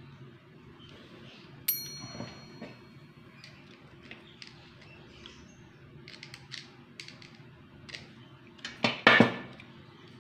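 Hands working a small wire connector onto a styrofoam float's bamboo stick: light clicks and rustles over a steady low hum. A short metallic ping comes about two seconds in, and a louder scraping rustle near the end.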